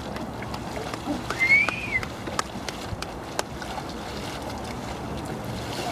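Paddle strokes of a two-man racing kayak, blades catching and splashing the water, with scattered sharp clicks over steady outdoor noise. About a second and a half in, a brief high call rises and falls, the loudest sound here.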